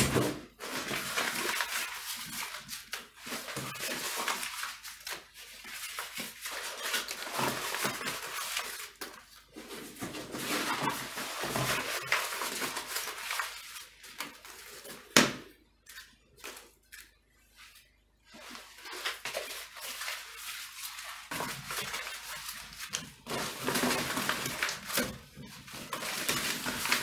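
Paper fire burning in a small fireplace, crackling and rustling as crumpled paper is pushed into the flames, with one sharp knock about fifteen seconds in and a short lull just after.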